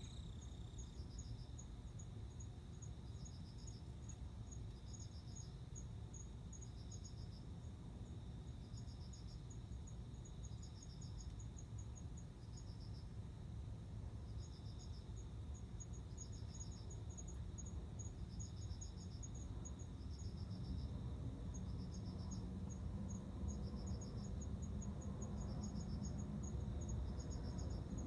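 Male cricket singing in short chirps of a few quick pulses, repeated about every one and a half to two seconds: the song a male uses to attract a female for mating. Over it runs a faster series of single high ticks and a steady high trill from other insects, above a low rumble.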